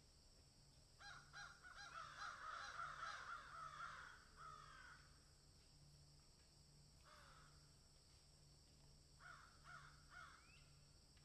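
Cheetahs chirping: faint, short, high calls in a quick run of several from about a second in, then a single call around seven seconds and three more near the end.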